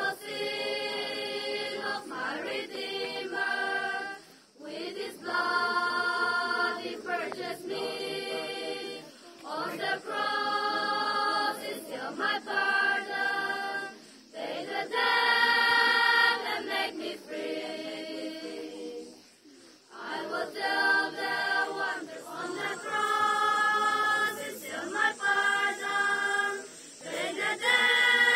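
A school choir of girls and boys singing together, in phrases of a few seconds each with short breaks for breath between them.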